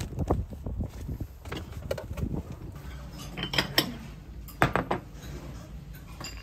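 Low steady rumble with scattered light knocks and clicks, a few sharper ones between about three and a half and five seconds in.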